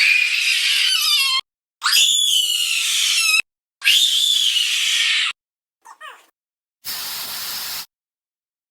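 Creature sound effects made for a tardigrade: three shrill screeches of about a second and a half each, wavering up and down in pitch, then a short faint falling chirp and a one-second hiss.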